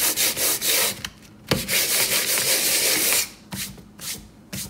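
Hand sanding of a painted countertop with sandpaper on a small sanding block: quick back-and-forth strokes, several a second, then a sharp knock about one and a half seconds in, a longer steady rub, and a few shorter scrapes near the end. The sanding feathers the edges of scratched paint so touch-up paint blends smoothly.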